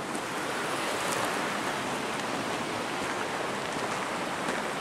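Creek water running: a steady, even rush with no breaks.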